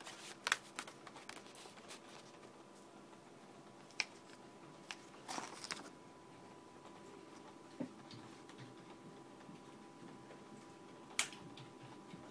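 Paper being handled: a spiral-bound book's pages and a paper envelope of pattern sheets, giving a few light clicks and taps and a brief rustle about five seconds in, over a faint steady hum.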